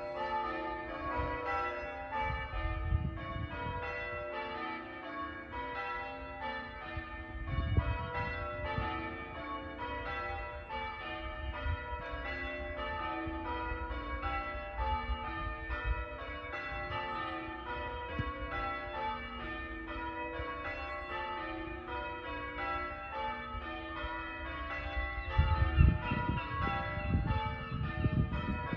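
Church bells being rung, a steady, unbroken run of strokes one after another, each ringing on into the next. A low rumble comes up a few times, loudest near the end.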